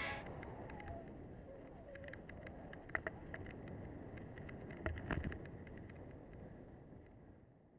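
Mountain bike riding over a dirt singletrack: a steady rumble of tyres on dirt, with rattles and sharp knocks from the bike over bumps, the strongest about 3 and 5 seconds in. The sound fades out near the end.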